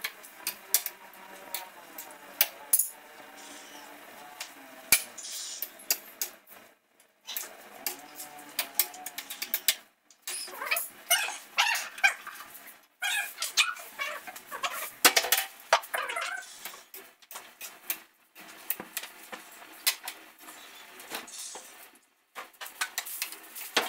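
Kitchen clatter: quick clicks and knocks of utensils, pans and dishes being handled at the stove and sink, thickest in the middle of the stretch. A wavering pitched call sounds over the clatter in the first several seconds.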